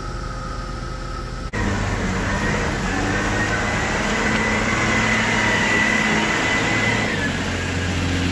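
XCMG LW300KV wheel loader's diesel engine running close by, a steady low note with a high whine over it. It is quieter for the first second and a half, then much louder after a cut.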